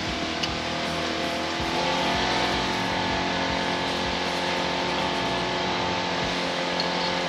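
Vehicle engine running steadily, its pitch rising a little about two seconds in and then holding.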